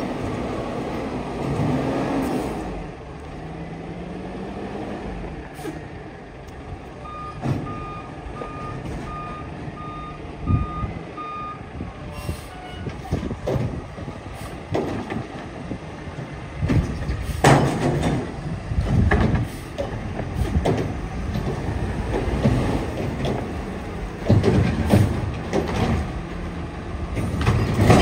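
Mack LEU garbage truck running at low speed, with a run of beeps from a warning beeper, about two a second, partway through. After that come repeated clanks and bangs as the Curotto-Can arm grips a wheeled trash cart and lifts it over the cab, loudest near the end.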